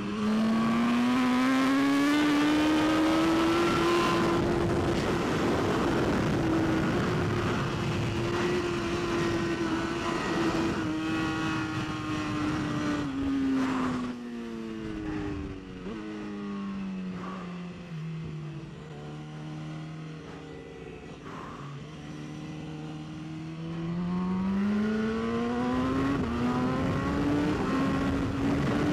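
BMW S1000RR superbike's inline-four engine at race pace. The revs climb and hold high, fall away about halfway through and stay low for several seconds, then climb again near the end.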